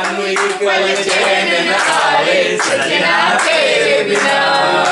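A group of men singing together, clapping their hands along in a steady rhythm.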